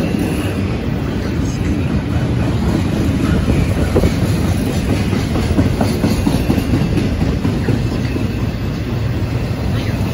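CSX double-stack intermodal freight train rolling past: a steady, loud rumble of well-car wheels on the rails, with a scattering of faint clicks.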